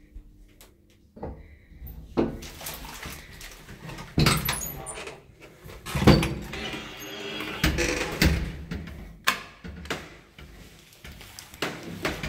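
Old lift's wooden inner doors and metal mesh outer gate being opened by hand: a string of knocks, clunks and rattles.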